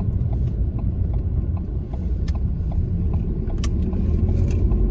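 Inside a car's cabin on a wet road: steady low engine and road rumble, with the turn indicator ticking faintly a few times a second during a left turn. Two sharper clicks come about two and three and a half seconds in.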